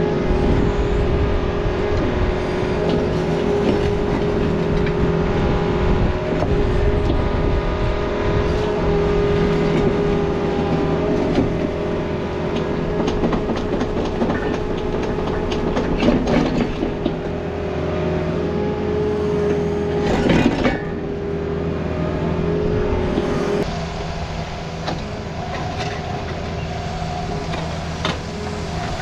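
Takeuchi TB260 mini excavator's diesel engine running steadily as it digs, with the bucket scraping and rocks clattering and knocking as rocky soil is scooped and dumped. Two louder knocks come about halfway and two-thirds through.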